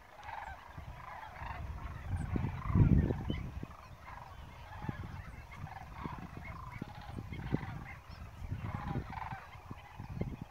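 Large flock of waterbirds calling over flooded fields, a dense, continuous chorus of short overlapping calls. Low rumbles hit the microphone throughout, loudest about three seconds in.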